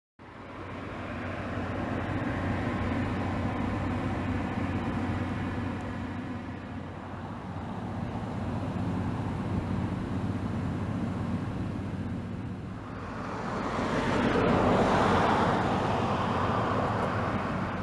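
Jet noise from a Boeing P-8A Poseidon's two CFM56-7B turbofans as it taxis, a steady rumble and rush that swells to its loudest about three-quarters of the way through, then eases.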